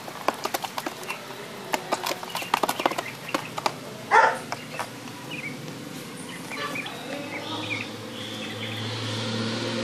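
A mass of inch-long juvenile freshwater crayfish clicking and clattering as they are scooped by hand and let fall back into a plastic tub, with many quick sharp clicks and one louder clatter about four seconds in. Later the clicks thin out, and a few short chirps and a steady low hum can be heard.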